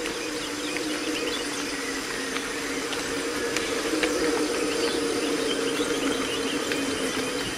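A steady hum on two tones, like a distant engine, over outdoor hiss, with faint bird chirps now and then; the hum stops just before the end.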